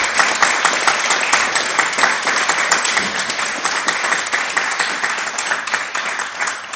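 Audience applauding: many hands clapping together, dense and even, slowly easing off toward the end.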